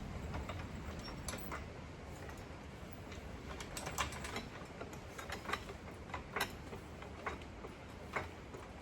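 Scattered light clicks and clinks of hand work as an oil pan and its gasket are fitted to a tractor engine block, over a low background hum.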